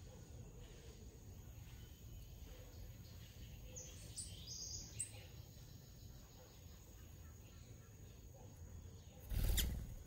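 Blue-gray tanager giving a few short, very high, thin chirps about four to five seconds in, over a faint low outdoor rumble. Near the end a brief, louder whoosh.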